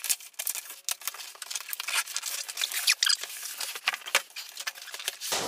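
Cardboard box being opened by hand: a dense run of scraping, tearing and crackling as the packaging is worked open and a flap is pulled back.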